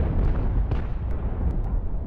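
Distant naval cannon fire heard as a continuous low rumble, with a few short, sharp cracks over it.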